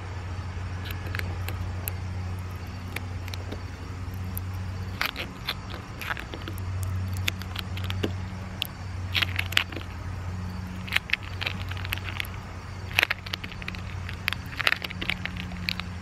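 Clear plastic transfer sheet being peeled off a vinyl decal on a car's rear window glass, giving scattered crackles and ticks in short clusters, over a steady low hum.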